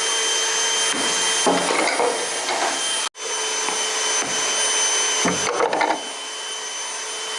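A motor-driven blower running steadily: an even rushing whoosh with a low hum and a thin high whine, with knocks and scraping handling sounds over it. The sound cuts out for an instant about three seconds in and comes straight back.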